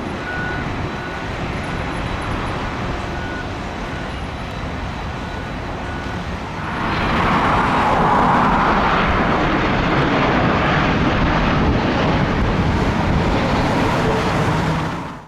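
Steady traffic noise with faint intermittent beeping in the first few seconds, then a jet airliner passing overhead, much louder from about seven seconds in, until the sound cuts off suddenly.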